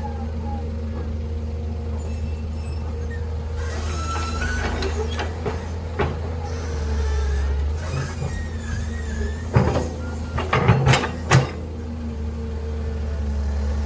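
Heavy engine running steadily with a low hum. A cluster of sharp, loud bursts comes about ten seconds in.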